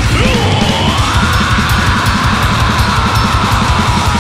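Heavy metal band playing live: distorted guitars, bass and drums over a fast, pounding low end. A single high held note swoops down near the start, then sustains and slowly drifts lower.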